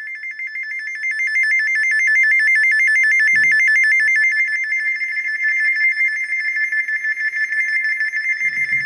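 First Alert SFA1150 weather radio sounding its alert alarm: a high electronic tone pulsing rapidly. It grows louder over the first couple of seconds, then holds steady.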